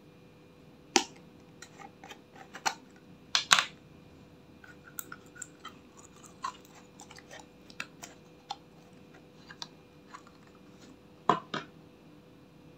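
Small glass jar with a plastic screw lid being handled and opened, and green glitter slime pulled out of it: scattered clicks and taps of lid and glass, with sharp louder clicks about a second in, around three and a half seconds in and again near the end, and soft sticky sounds of the slime.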